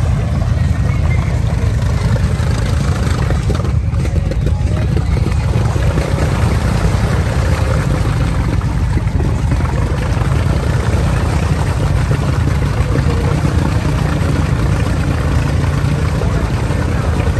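Off-road vehicle's engine running steadily while driving along a trail, heard from on board, with a deep, constant rumble and rushing noise over it.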